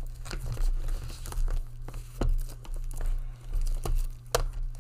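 Plastic crinkling and rustling as Blu-ray cases are picked up and handled, with a few dull knocks and a couple of sharp clicks near the end.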